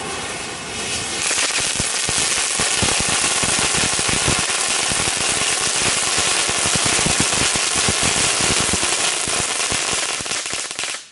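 Category 1 ground firework burning on the pavement: a loud hissing spray of sparks that turns, about a second in, into a dense rapid crackle, and stops abruptly at the end.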